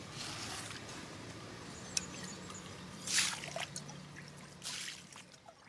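Water trickling and splashing, with several short louder pours, the loudest about three seconds in, then fading toward the end. A faint steady low hum runs under the second half.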